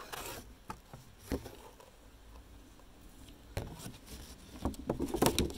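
Light knocks and taps at a wooden interior door, one about a second in and a quick run of them near the end, as the door is knocked on and pushed open.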